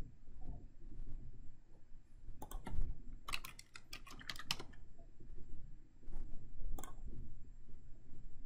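Typing on a computer keyboard: a quick run of keystrokes from about two and a half to four and a half seconds in, then a few single clicks, over a low background hum.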